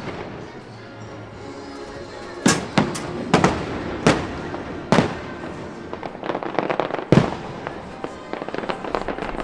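Fireworks going off: a series of loud bangs about a second apart, with bursts of rapid crackling in the second half, over music playing underneath.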